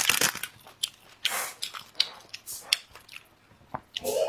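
Close-miked eating sounds: a paper seasoning sachet crinkles at the start, then scattered clicks and a short rustle as pieces of crispy fried beef snack are handled, and a bite into one near the end.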